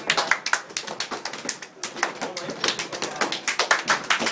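Hands clapping and slapping, many sharp irregular hits in quick succession, with voices.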